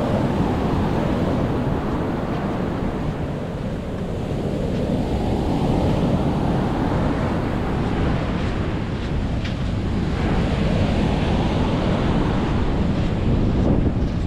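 Sea waves breaking and washing up the beach, surging in about every five seconds, with wind buffeting the microphone underneath as a heavy low rumble.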